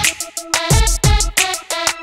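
Background band music with a quick, choppy beat of short sharp hits and pitched notes.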